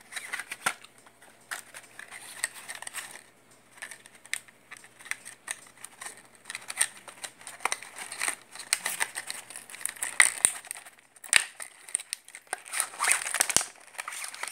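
Clear plastic blister packaging and its cardboard insert being handled and pulled open: irregular crinkling with sharp clicks and snaps throughout.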